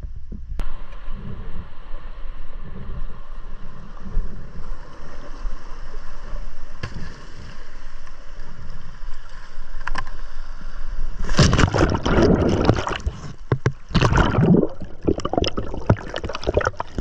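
Seawater sloshing around the rocks with a low rumble of surf and wind on the microphone, then about eleven seconds in a loud rush of splashing and bubbling as a spearfisher goes into the water, the last part heard underwater.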